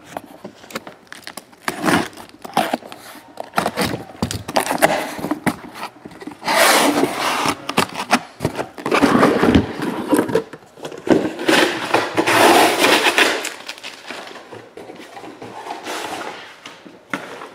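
A taped cardboard shipping case being ripped open by hand: cardboard and packing tape tearing and scraping in several long rasps, mixed with irregular knocks and rustling as the shrink-wrapped card boxes inside are handled and slid out.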